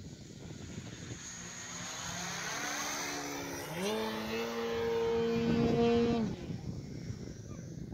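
Large electric RC aerobatic plane, a Slick 540 with a Boos 180 motor on 12S, passing low with its motor and propeller whining. The whine jumps up in pitch about halfway through, holds loudest for a couple of seconds, then drops away and cuts off abruptly as the throttle is pulled back.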